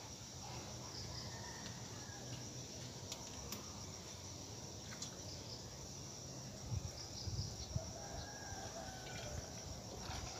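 Steady high-pitched insect buzzing, with a rooster crowing faintly about eight seconds in. A few soft knocks come a little before the crow.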